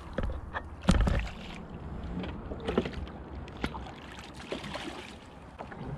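Hooked sea trout splashing and thrashing at the surface beside a kayak, amid irregular clicks and knocks. The loudest is a single thump about a second in.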